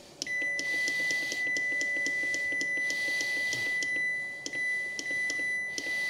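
Mycoolman CCP60 fridge freezer's control panel beeping as the temperature button is held and the setpoint steps down toward 2 degrees: a steady high beep tone with quick ticks several times a second.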